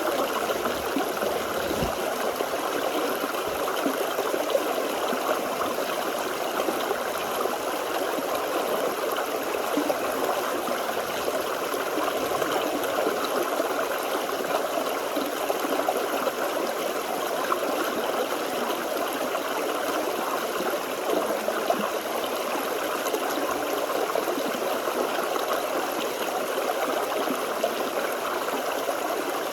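Forest stream flowing steadily over rocks, a continuous babbling and gurgling rush of water.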